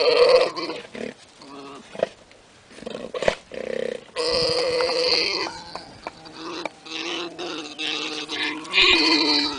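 Llamas calling: a series of pitched, wavering cries of varying length with short gaps between them, the longest a little after four seconds in and another loud one near the end.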